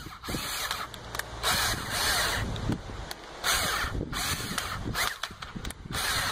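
Power drill driving a small screw through a wooden block into a PVC pipe ring, run in about four short bursts of roughly a second each with brief pauses. The screw goes in hard, driven without a pilot hole.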